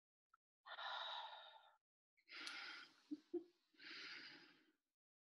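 A person taking three slow, audible breaths, each about a second long, with a couple of soft clicks between the second and third.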